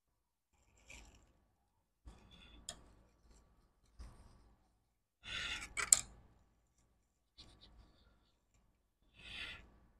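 Small tools and parts handled on a repair bench: scattered light clicks and scraping, with a short hissing burst and a sharp click about five to six seconds in, and a softer hiss near the end.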